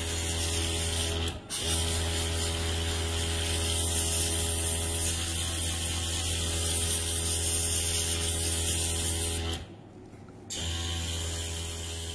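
Small airbrush compressor running with a steady hum, and air hissing through the airbrush as it sprays paint onto a nail tip. It cuts out briefly about a second and a half in, and again for about a second near the end.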